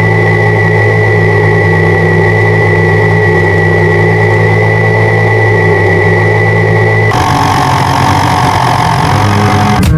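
Engine running steadily at idle: a constant low hum with a thin high whine over it. The sound changes about seven seconds in.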